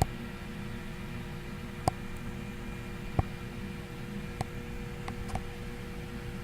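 Homemade CNC router cutting, with its dust collection running, heard muffled through the walls of its insulated room: a steady low hum with a faint steady drone and a few scattered clicks.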